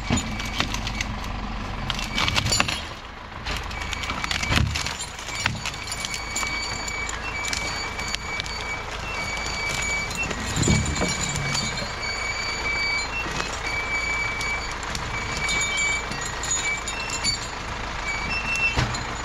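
Repeated high electronic warning beeps, sounding on and off over several seconds, over a tractor engine running steadily. A few sharp knocks in the first seconds.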